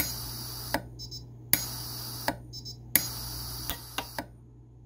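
Micro-TIG welder firing three times on a fine 14k gold chain link at its lowest setting, about 3 watt-seconds. Each weld is a sharp snap followed by about a second of high hiss.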